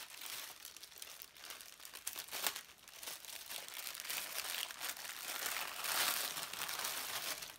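A thin plastic packaging bag crinkling and rustling continuously as it is handled and pulled open, loudest about six seconds in, then stopping abruptly.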